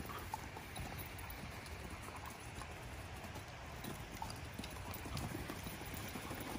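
Faint, irregular thuds and scuffs of two dogs' paws on artificial turf as a Rhodesian Ridgeback and a Vizsla wrestle and break into a chase.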